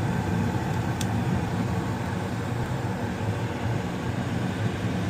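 Two-stage gas furnace running steadily in high fire: a continuous hum and rush from its inducer motor, blower and burners, with one faint tick about a second in.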